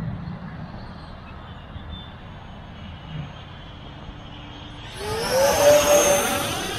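FMS F-15 V2 model jet's electric ducted fans, faint at first, then a rising whine and rushing hiss as the jet makes a fast low pass overhead. It is loudest about a second before the end, then starts to fade.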